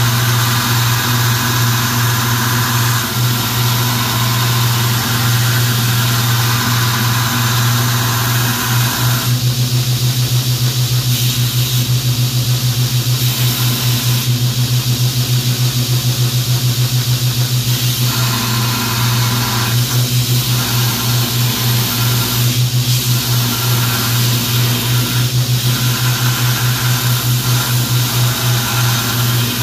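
Belt grinder running with a steady low motor hum while a 1095 steel knife blank is ground against the belt, profiling it by stock removal. The higher grinding hiss of steel on the belt swells and drops several times as the blank is pressed on and eased off.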